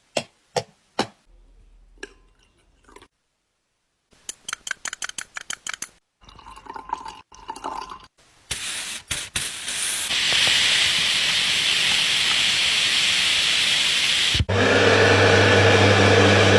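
Sneaker-cleaning sounds in quick succession: a few sharp clicks, a run of rapid scrubbing strokes, then a long steady hiss of spray, which gives way near the end to a small machine's steady hum.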